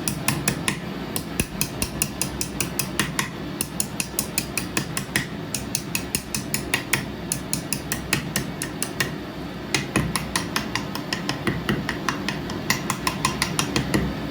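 Rapid, uneven metallic clicking and tapping, several clicks a second, over a steady low machine hum: bead-drilling machinery at work.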